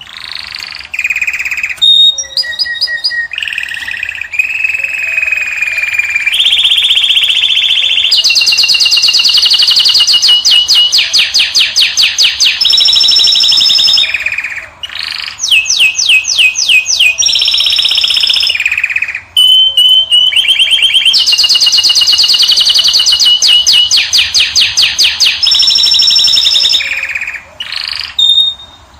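Caged finch singing a long, loud song of fast trilled runs and varied twittering phrases, with two short pauses in the middle.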